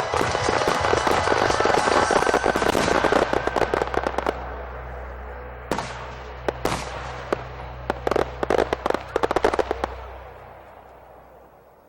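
Fireworks display: a dense, rapid crackle of bursts for about four seconds, then scattered single sharp cracks and bangs, dying away near the end.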